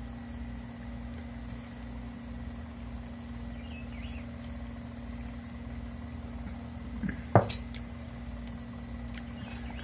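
A steady low hum runs throughout, with one sharp click about seven seconds in, while a man eats stewed tripe with his hands.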